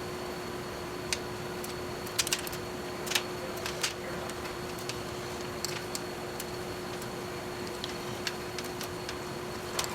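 Irregular light clicks and ticks of small plastic and metal parts being handled, as wire terminals are worked on a tail-light bulb holder for re-pinning. A steady hum runs underneath.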